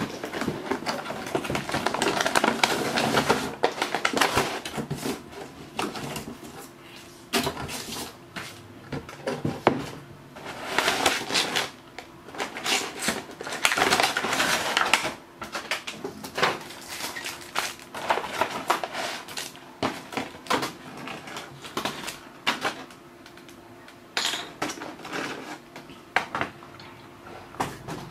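Cardboard box and plastic packaging being handled during unboxing: irregular rustling and crinkling of a clear plastic bag with scattered knocks and scrapes, loudest in bursts a second or two in and again around the middle.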